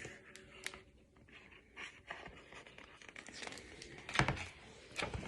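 Pages of a picture book being turned: faint paper rustling with a few small clicks, and a louder rustle about four seconds in.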